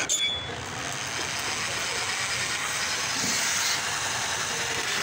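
Steady road-traffic noise, an even rushing hiss that swells slightly about three seconds in.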